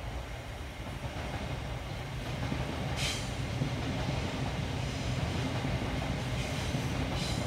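Low rumble of a passing train, growing steadily louder, with a low hum running through it. A brief scuff about three seconds in and another near the end.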